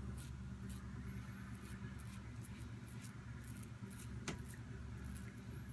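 Short scraping strokes of a Gillette Fat Handle Tech safety razor cutting through beard stubble, one every half second or so, over a steady low hum.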